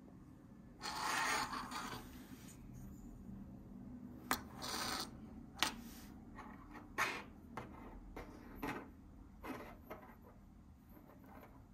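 LEGO bricks and a minifigure being handled on a tabletop: a brief rustle and slide about a second in, then a scatter of light plastic clicks and taps as pieces are set down and picked up.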